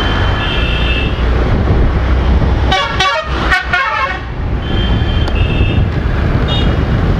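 Riding a scooter through town traffic: a steady low rumble of the moving scooter, short high-pitched horn beeps now and then, and about three seconds in a loud, wavering horn from a bus passing close alongside for about a second and a half.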